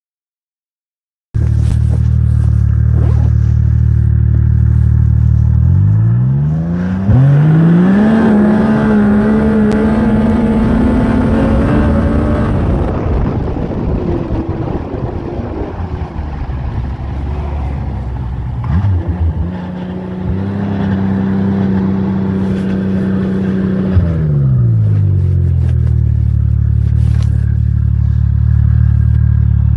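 Yamaha 998 turbo three-cylinder snowmobile engine idling, then revving up twice and holding high revs for several seconds each time before dropping back to idle.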